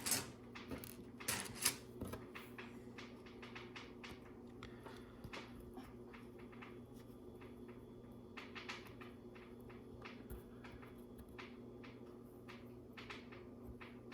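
Small plastic LEGO pieces clicking and tapping as they are handled and pressed onto the mosaic: a run of light, irregular clicks, bunched near the start and again about two-thirds of the way through, over a faint steady hum.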